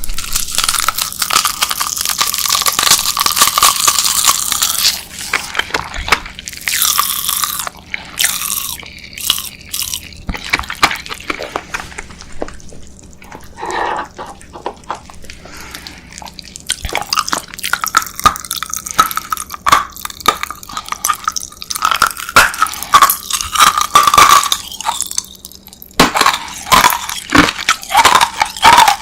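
Close-miked eating sounds: wet, sticky chewing with clicks and occasional crunches, with louder dense stretches at the start and again past the middle.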